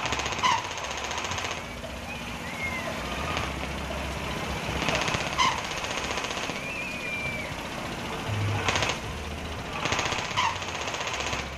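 Single-cylinder stationary diesel engine driving a kora-kora swing-boat ride, its open exhaust running in loud, rapid rattling bursts about every five seconds and dropping lower between them.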